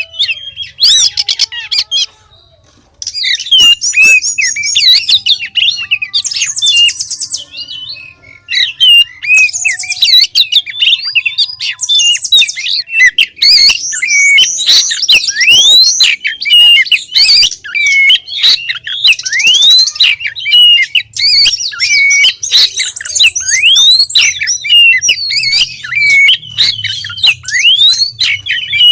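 Female Oriental magpie-robin calling to a male: a fast, nearly unbroken run of varied sweeping whistles and chirps mixed with short harsh rasping notes, after a brief pause about two seconds in.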